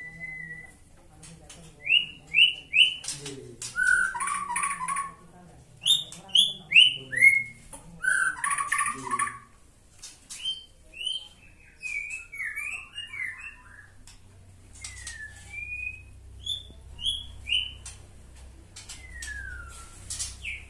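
White-rumped shama (murai batu) singing: a run of clear whistled notes, many of them sliding downward and coming in quick groups of three, with short pauses and a few lower warbled phrases between.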